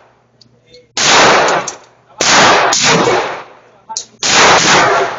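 Firearm shots: a slow string of single shots, each a sharp crack trailing off in echo, spaced one to two seconds apart.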